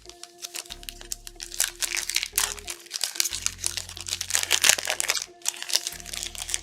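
Plastic trading-card pack wrapper crinkling and tearing as it is opened by hand, in dense rapid crackles that swell in the middle. Background music with a steady bass line runs underneath.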